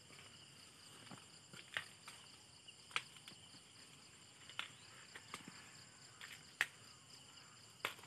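Quiet, steady high-pitched chorus of insects in the field. About half a dozen short, sharp snaps and rustles break through it, typical of steps through dry corn stalks and leaves.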